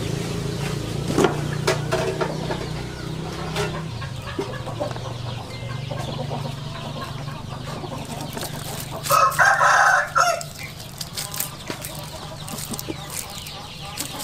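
A rooster crows once, about nine seconds in, for about a second and a half. A steady low hum runs underneath, with a few sharp clicks early on.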